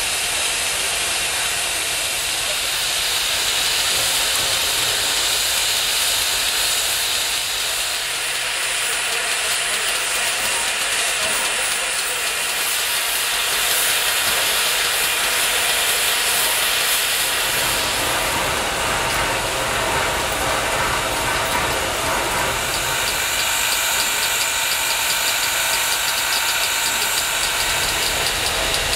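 Steady hiss of steam venting from a steam locomotive, Reading and Northern's ex-GM&O 4-6-2 Pacific No. 425. A low rumble joins in a little past halfway.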